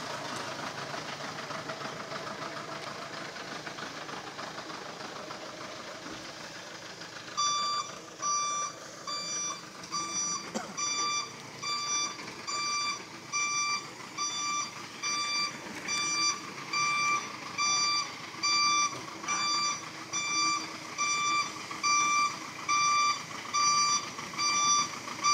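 Engine running for the first several seconds, then about seven seconds in a Hoa Mai dump truck's reversing alarm starts beeping, about one beep a second, growing louder as the truck backs up.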